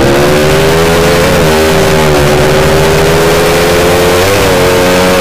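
Custom 'sleep engine' drag motorcycle with a loud racing exhaust running at steady high revs under way, its pitch wavering briefly twice, about one and four seconds in.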